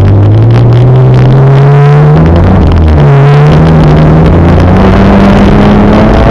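Loud car engine accelerating. Its pitch climbs, drops at a gear change about two seconds in, then climbs again more slowly in the next gear.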